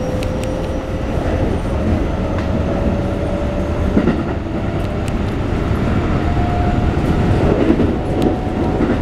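Keikyu New 1000 series commuter train running, heard from inside the car: the Toyo IGBT-VVVF inverter motor whine rises slowly in pitch as the train gathers speed. Under it is a steady wheel and track rumble, with a few sharp clacks over rail joints.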